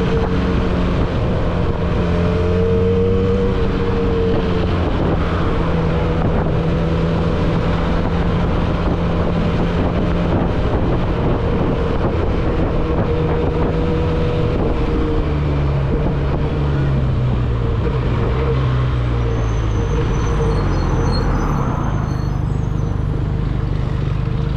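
Benelli TNT 302S parallel-twin engine running through an aftermarket R9 exhaust while the bike is ridden at a steady speed. From about fifteen seconds in the engine note drops in steps as the bike slows, settling to a low, steady note near the end.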